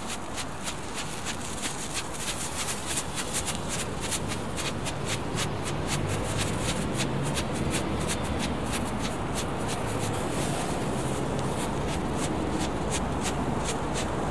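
Ground firework burning with a rapid, continuous crackle of many small pops, getting somewhat louder about halfway through.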